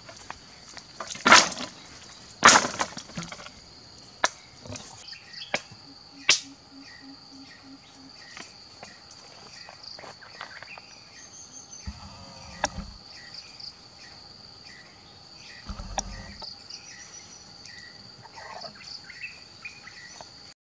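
Dry wooden sticks snapping and breaking, with two loud cracks in the first few seconds and scattered smaller cracks and knocks after. A steady high-pitched insect buzz runs underneath.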